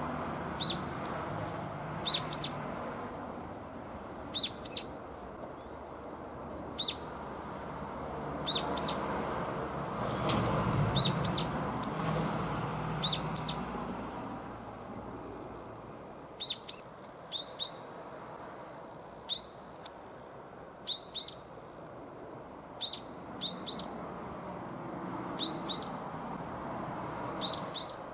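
Brown-eared bulbul, which the uploader takes for a juvenile, giving short, high, sharp calls, often two or three in quick succession, repeated every second or two. Under it is a steady low background rumble that grows louder around the middle.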